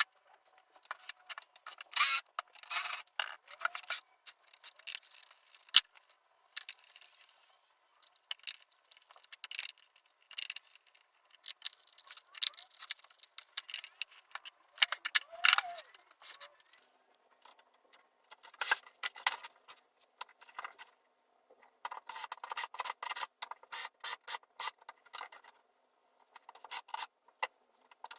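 Small metal parts and hand tools being handled during assembly: irregular clicks, clinks and scrapes that come in bursts with short pauses between them.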